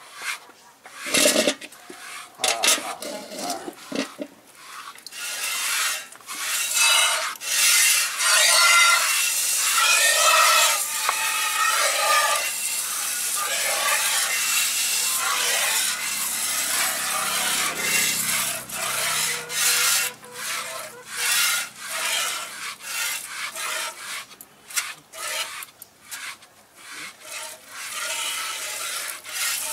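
Cow being milked by hand: jets of milk squirting from the teats into an aluminium bucket, a rhythmic hissing rasp with each squeeze, repeated over and over.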